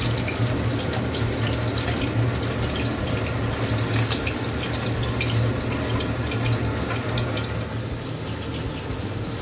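Hot mustard oil sizzling and crackling in a kadhai as fried climbing perch are lifted out with a steel spatula, over a steady low hum.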